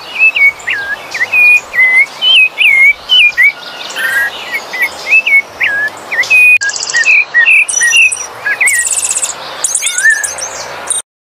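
Rufous-bellied thrush (sabiá-laranjeira) singing: a continuous run of short, varied whistled phrases sweeping up and down. Thin, high, rapid trills join in during the second half, and the song cuts off suddenly near the end.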